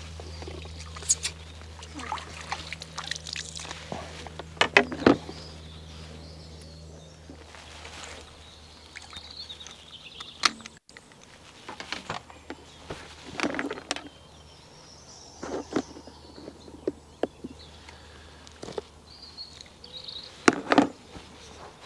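Quiet outdoor lakeside ambience broken by scattered clicks and knocks as fishing tackle is handled at the bank.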